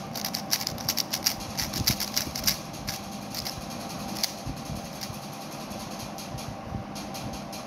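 GAN 356 M magnetic speed cube being turned by hand: quick plastic clicks of its layers snapping into place, dense in the first three seconds and sparser after. A steady low hum runs underneath.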